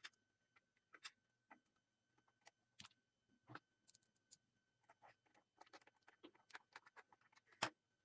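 Faint, scattered clicks and taps of plastic parts and a small screwdriver as a label printer's mechanism is handled and taken apart by hand. The taps come more often in the second half, with one louder click near the end.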